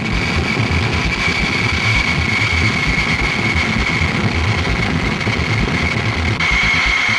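Industrial centrifugal fan running on a fully ducted test rig while the conical flow regulator at the duct outlet is wound open: a loud, steady rush of air with a high, steady whine. The whine grows stronger near the end.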